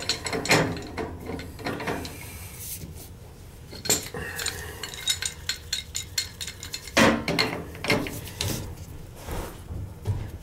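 Metal tools and fittings clinking and knocking in irregular bursts while a gas valve and its piping are being taken apart.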